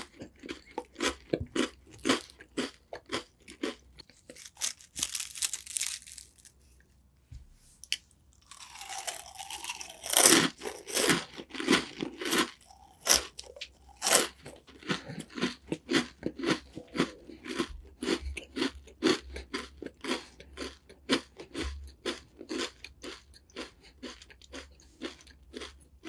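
Crunchy snack sticks being bitten and chewed close to the microphone: a long run of sharp, crisp crunches, about two a second. There is a short lull partway through, and the loudest bites come about ten seconds in.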